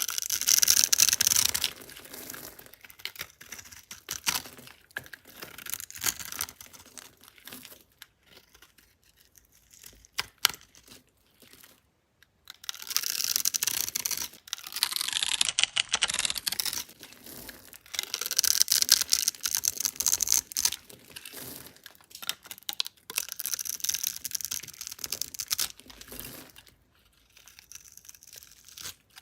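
Crisp crunching and crackling of dry soap, coming in several bursts of a few seconds with short quiet gaps between them.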